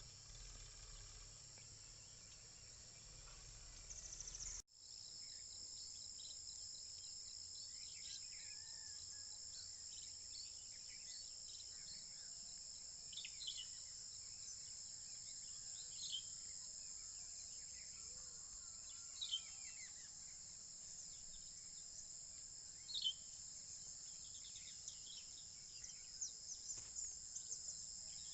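Insects droning in a steady, high-pitched chorus. Short bird chirps break in every few seconds, more often near the end.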